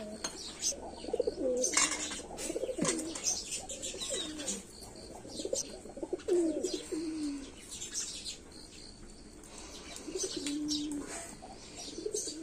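Pigeons cooing repeatedly, with short clinks of steel spoons against steel bowls.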